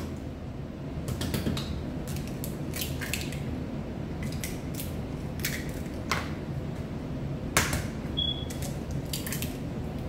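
Eggs being cracked against the rim of a plastic mixing bowl and their shells pulled apart: a scattered series of short sharp taps and cracks, the loudest about three-quarters of the way through, over a steady low hum.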